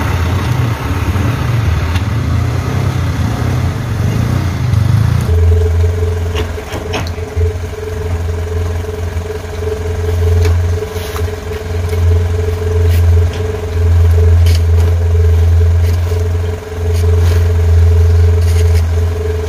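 Diesel dump truck engine, first running under way over rough dirt. About five seconds in it gives way abruptly to a steady low hum with a constant tone, the engine standing and running steadily, with a few sharp clicks now and then.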